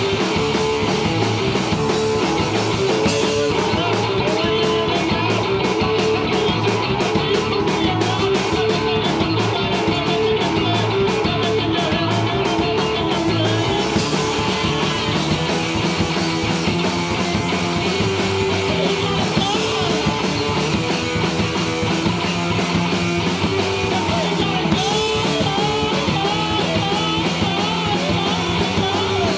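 A live rock band playing loud electric guitar and drum kit through a PA, with a steady driving drum beat.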